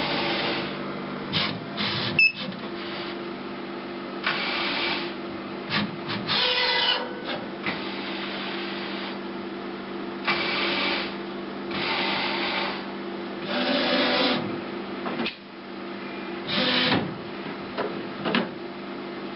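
HP DesignJet Z3200 large-format printer drawing in and aligning a paper roll. A steady mechanical hum runs throughout, with repeated whirring spells of a second or two each as its motors drive the paper.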